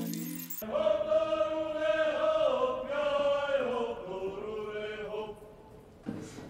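Religious hymn chanted by voices: a low sung chord breaks off under a second in, and a higher, louder sung line with long held notes takes over, then fades out about five seconds in.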